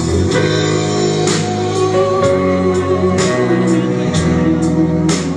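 Band music without vocals: sustained guitar chords over a steady drum beat, the instrumental passage between the chorus and the next verse of a rock ballad.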